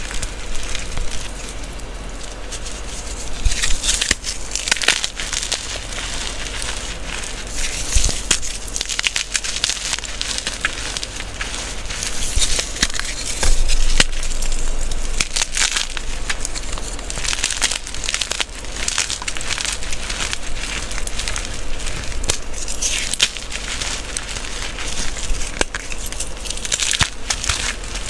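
Hands squeezing and crushing crumbly dyed gym chalk, a dense crunchy crackle that swells and eases with each squeeze.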